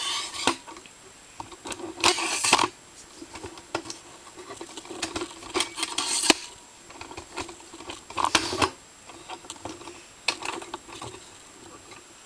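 Handling noise: scattered clicks and light knocks with a few short rustling bursts, the loudest about two seconds in and again about eight seconds in.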